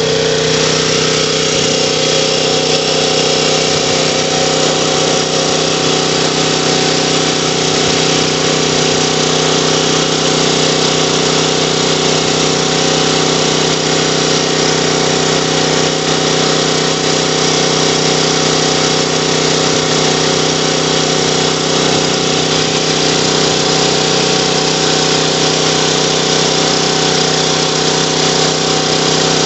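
Honda GX270 single-cylinder engine on a portable generator running at a steady, constant speed, its carburetor freshly rebuilt.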